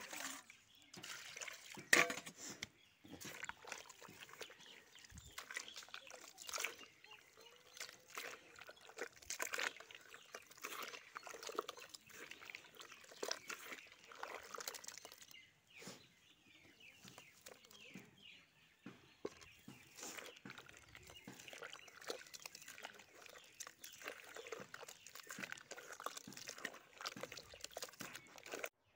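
A hand sloshing and squelching a slurry of soil and cow dung with water in an aluminium bucket, mixing the coating for plastering a floor, with irregular wet splashes and one sharper knock about two seconds in.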